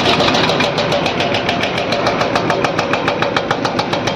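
Excavator-mounted hydraulic breaker hammering rock in rapid, even blows, several a second, over the steady running of the excavator's diesel engine.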